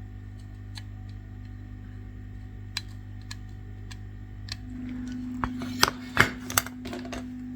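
Small metal tools clicking and tapping on a repair bench, a few sharp knocks about six seconds in, over a steady electrical hum that grows louder about two thirds of the way through.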